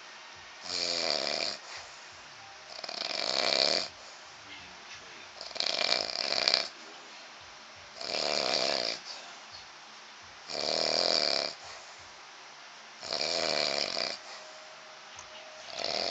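A man snoring in his sleep: a snore about a second long roughly every two and a half seconds, seven in all.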